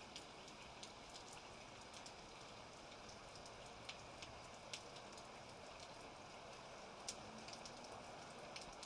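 Steady rain with individual raindrops ticking sharply on a surface, at low level, between thunderclaps of a thunderstorm recording.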